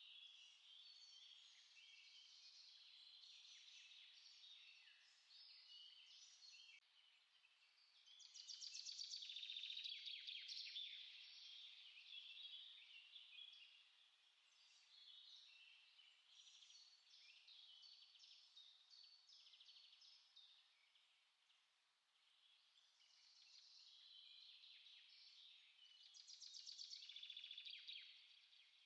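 Faint chorus of small songbirds chirping and singing, overlapping short phrases, with a louder rapid trill about eight seconds in and again near the end.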